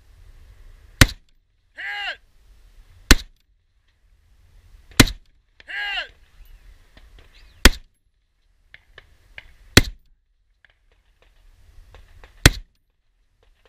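Scoped M1A .308 semi-automatic rifle firing six slow, aimed single shots, about two to two and a half seconds apart. A short shouted voice follows the first and third shots.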